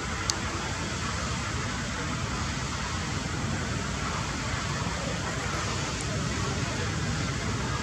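Steady outdoor background noise with no distinct events, apart from a single sharp tick just after the start.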